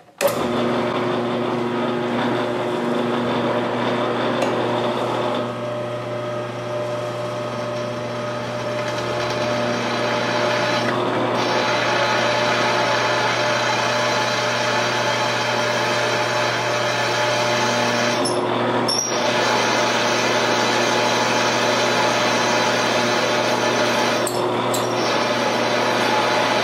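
Jet JMD18 mill-drill running and drilling holes through quarter-inch steel plate: a steady motor hum with cutting noise on top that comes in suddenly and has a few brief breaks.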